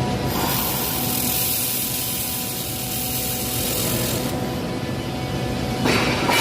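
Steady machine hum with a hiss that starts abruptly about half a second in and cuts off about four seconds later, as a handheld laser welder runs a weld.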